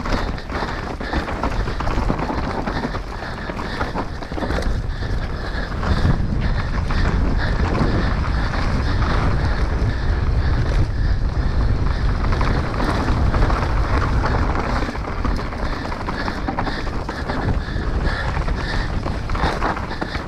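Wind buffeting the microphone over the tyre noise and clattering of an enduro mountain bike descending a trail at speed. The low wind rumble grows louder about six seconds in.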